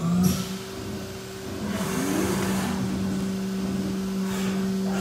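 Haas UMC 750 SS five-axis CNC mill running a program: the spindle comes up to speed at the start and then holds a steady whine. There are two short spells of hissing spray and a brief gliding servo whine about two seconds in.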